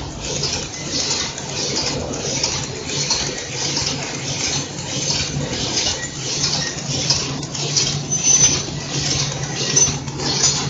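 Automatic cutlery and napkin wrapping machine running: a rhythmic high-pitched clatter repeating about twice a second over a steady low hum.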